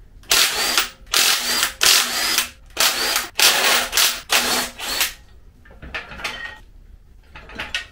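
An impact wrench hammering on the flywheel bolts of an MGB 18V B-series engine in a series of short bursts, about six in the first five seconds, undoing them to take the flywheel off. A few quieter knocks follow near the end.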